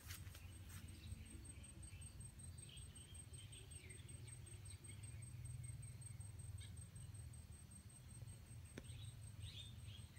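Quiet garden ambience: a low rumble under faint bird chirps now and then and a thin, steady high trill, with a single soft click near the end.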